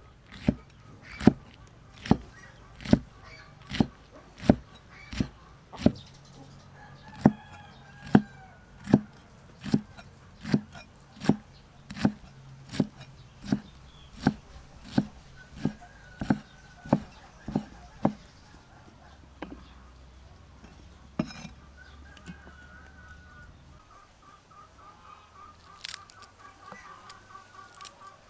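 Cleaver chopping pickled bok choy on a wooden chopping board: steady, even chops a little over one a second that stop about two-thirds of the way through, followed by one more chop a few seconds later.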